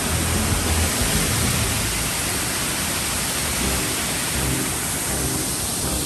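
Waterfall spilling over a concrete weir into a pool: a steady rushing of water.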